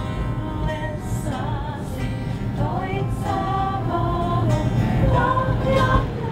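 Music with a woman singing a melody, over a steady low rumble.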